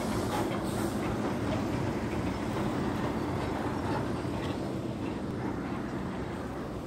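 A steady low rumble, with a few faint clicks and ticks over it.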